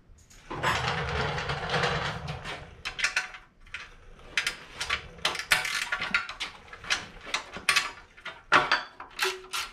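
Ratchet wrench clicking in short irregular runs as the cylinder head bolts of a Snowbird snowblower's small engine are loosened. It opens with a couple of seconds of rumbling scrape.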